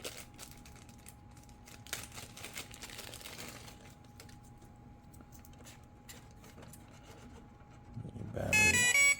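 Faint clicks and handling noise as a battery plug is pushed into an RC jet's battery compartment. Near the end the brushless motor's speed controller starts a run of loud electronic beeps that step in pitch, its power-on tones showing the battery is connected and the plane armed.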